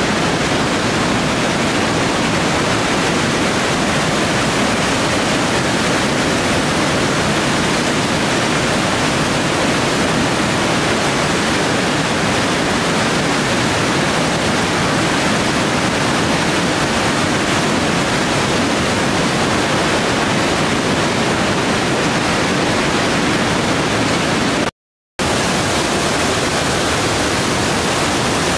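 Trümmelbach Falls, glacial meltwater waterfalls pounding through a rock gorge inside the mountain: a loud, steady rush of water. It cuts out completely for about half a second near the end.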